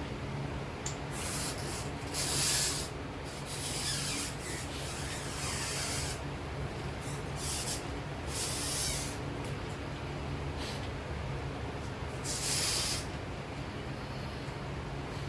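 A knife cutting through crepe soling in repeated scraping strokes, about seven in all, over a steady low hum.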